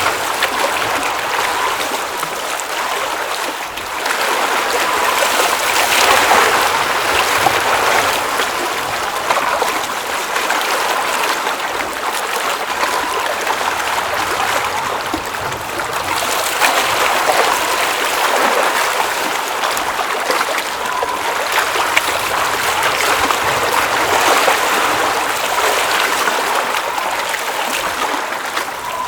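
Water at the edge of a glacial mountain lake, trickling and splashing steadily with many small droplet clicks. It swells and eases every few seconds.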